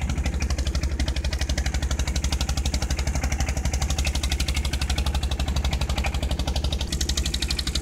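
A wooden fishing boat's engine running steadily, chugging with a fast, even beat of about ten pulses a second.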